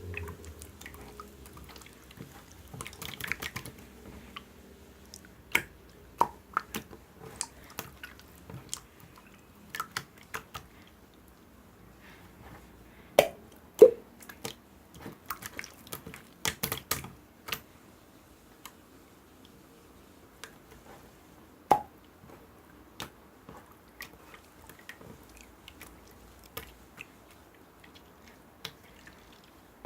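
Scattered small clicks and taps at irregular intervals, a few sharper ones standing out above the rest.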